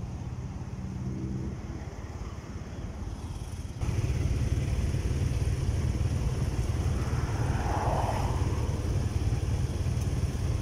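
Motorcycle engine running on the road. About four seconds in, it gets suddenly louder with a heavy low rumble that holds steady.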